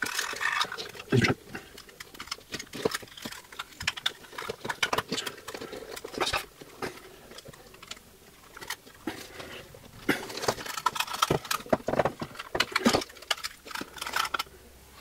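Handling noise of wires and a plastic battery holder being pressed into a metal mint tin: irregular small clicks, taps and rustles, busiest near the start and again about ten seconds in.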